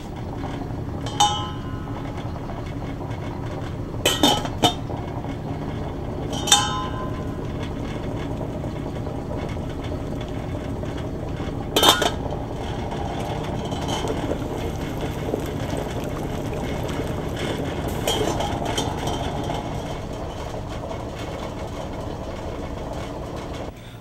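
Stainless steel stock pot lid clinking against the pot, about six sharp metallic clinks that ring briefly, with one at about twelve seconds the loudest. Underneath runs the steady rushing of an overhead fume hood fan.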